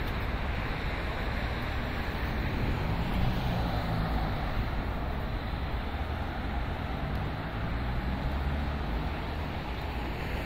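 Steady city street traffic noise from passing vehicles, with wind noise on the microphone.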